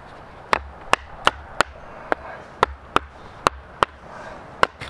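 Batoning kindling: a wooden baton striking the spine of a fixed-blade knife driven into a piece of wood on a log block. About ten sharp knocks, two or three a second, unevenly spaced.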